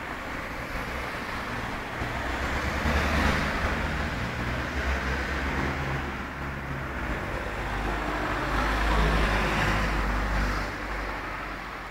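Road traffic passing: a noisy rumble that swells as a vehicle goes by about three seconds in and again as another passes around nine seconds in.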